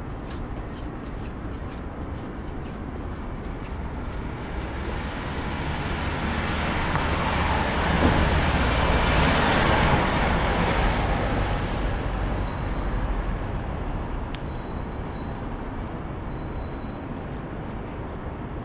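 A motor vehicle passing on a city street: its noise builds over several seconds, peaks near the middle and fades away, over a steady low rumble of wind and traffic.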